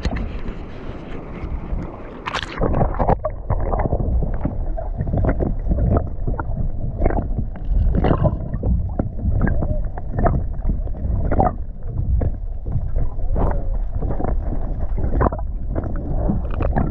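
A paddle board's paddle dipping and pulling through seawater: a run of repeated splashes and gurgles, starting about two seconds in, over a low rumble of wind on the microphone.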